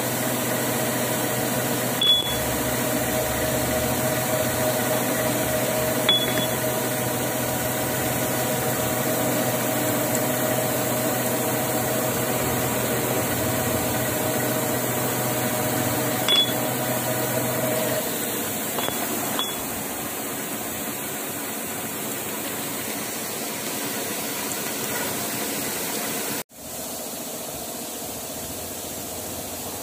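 Steady mechanical hum of a metal lathe running, with a few light clicks. About two-thirds of the way through the hum drops lower and quieter, and it cuts out for an instant near the end.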